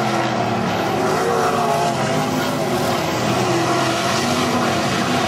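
Several non-wing sprint cars' V8 engines racing, with overlapping engine notes rising and falling as the cars go around the track.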